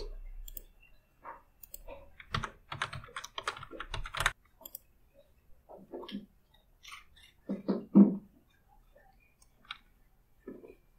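Computer keyboard typing in short, irregular runs of keystrokes, with a few mouse clicks. There are duller knocks about six and eight seconds in, the one at about eight seconds the loudest.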